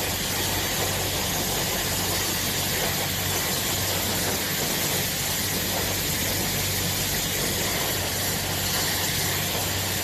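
Moobibear hair dryer running steadily on wet hair: an even rush of air over a low, constant motor hum.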